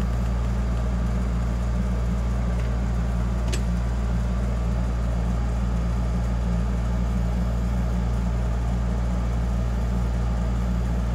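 Steady low background hum, unchanging throughout, with a brief faint high click about three and a half seconds in.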